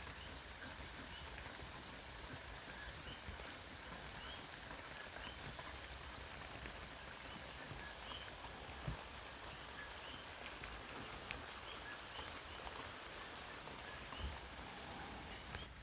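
Steady rain falling, with faint two-note chirps from coqui frogs repeating every second or so and a few scattered drip clicks.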